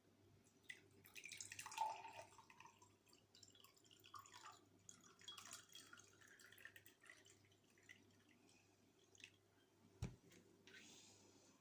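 Faint liquid pouring and dripping, with a single soft knock near the end.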